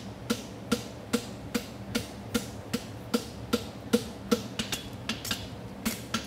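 Farrier's hammer striking a red-hot steel horseshoe bar on the anvil, about two and a half blows a second, each with a short ring from the anvil. A steady hum from a cooling fan runs underneath.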